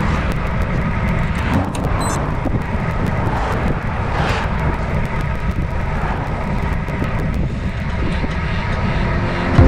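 Steady rushing wind buffeting a camera microphone while riding along a road, with a constant low rumble.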